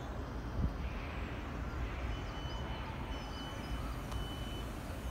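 Outdoor railway station background: a steady low rumble, with a thin high tone that comes and goes from about two seconds in and a few faint chirps.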